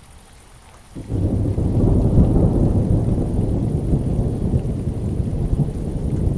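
Steady rain hiss, then a loud roll of thunder that breaks in suddenly about a second in and rumbles low for several seconds, easing slightly near the end.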